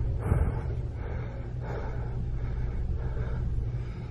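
A man breathing hard and fast close to the microphone, a regular puff about every 0.7 s, over a steady low rumble.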